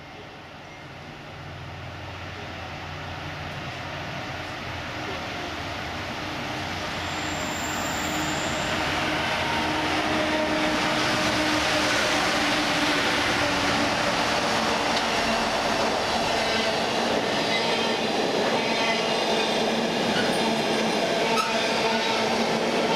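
Two Class 68 diesel locomotives approaching and passing close by, their engines growing steadily louder over about ten seconds, then staying loud as the container wagons behind them roll past.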